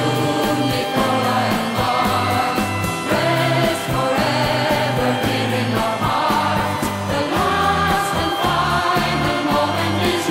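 Background music with singing voices and a steady bass line.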